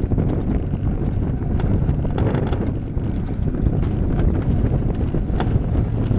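Alpine coaster sled running fast down its tubular steel rails: a steady rumble of the wheels on the track mixed with wind rushing over the microphone, with a few sharp clicks and rattles.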